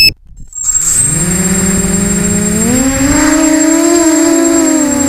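After a moment of silence, the Eachine EC250 racing quadcopter's motors start up and spin with a steady hum. The hum steps up in pitch about two and a half seconds in, then wavers with the throttle, over a thin steady high whine.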